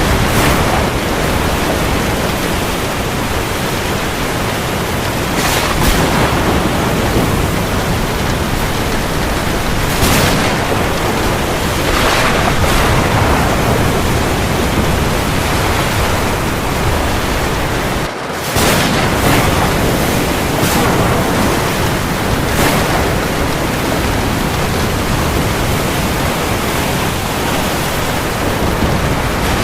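Steady heavy rain falling on the sea: a dense, even hiss with a few brief louder swells. It dips for a split second about 18 seconds in, like a splice in the recording.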